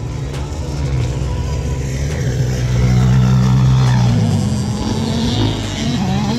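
Motocross dirt bike engine running hard on the track, its pitch rising and falling as the rider works the throttle, loudest around the middle.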